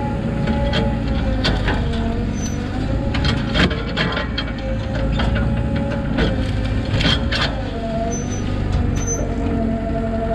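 Mini excavator's diesel engine running under load, with a hydraulic whine that shifts in pitch as the boom and thumb move. Sharp knocks and cracks sound again and again as the bucket and thumb grip and lift a log.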